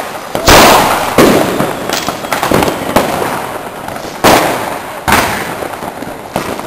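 Fireworks going off: about six loud bangs from exploding rockets, the biggest about half a second and a second in and again after four and five seconds, each trailing off with an echo. A steady crackle of other fireworks runs underneath.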